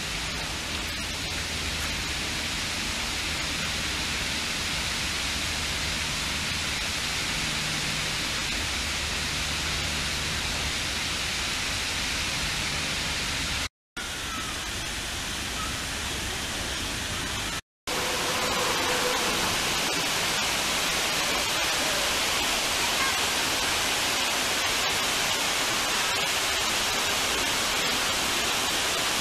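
Steady rushing of water pouring over a low dam spillway, cut off by two brief silences partway through.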